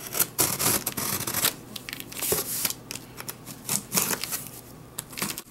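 A subscription box being opened by hand and its paper packing rustled and crinkled, in irregular bursts.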